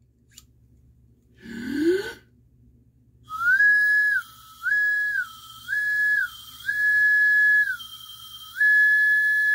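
Burger King Rio 2 Charlie anteater toy slide whistle, its tongue being the slide, blown and slid back and forth so the pitch jumps up and down between two notes, five high notes in all, the last one held long. A short breathy rising sound comes first, about a second and a half in.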